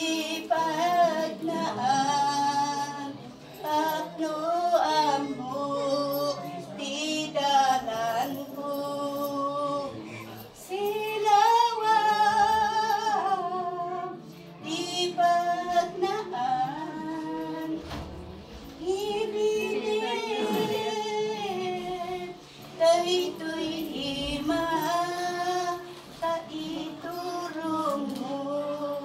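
Women singing a slow song without accompaniment, in long held phrases with short pauses for breath.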